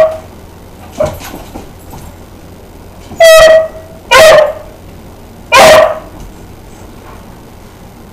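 A dog barking in loud, sharp single barks: one right at the start, a fainter one about a second in, then three more about a second apart from around three seconds in. The barking is over a rawhide bone that another dog has taken.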